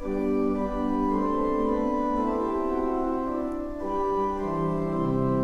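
Organ starting up and playing slow, held chords, the bass line stepping lower near the end.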